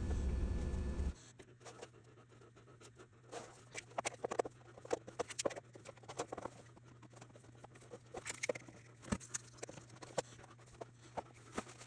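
Irregular light clicks, taps and knocks from plywood strips being handled and stacked during a glue-up, over a faint steady low hum. A loud low rumble cuts off abruptly about a second in.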